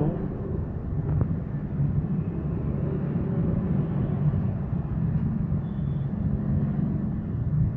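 Steady low engine rumble, even throughout, with no sharp knocks or clicks standing out.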